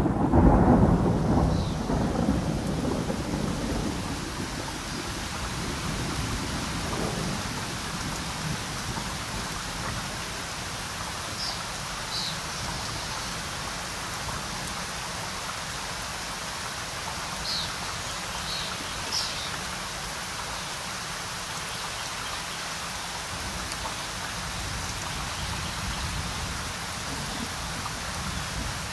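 Thunder rumbles loudly at the start and fades over about four seconds, leaving steady rain falling, with a few single drops ticking out now and then around the middle.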